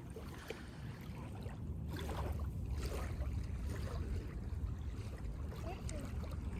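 Steady low rumble of wind buffeting the microphone, with a faint outdoor wash behind it.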